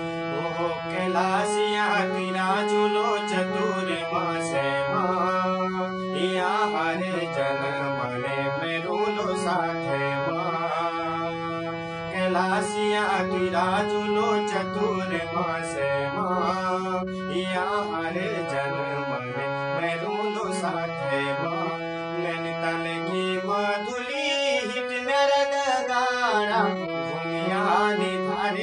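A man singing a Pahari folk song to his own harmonium accompaniment, the harmonium holding steady reed chords under the voice's melody.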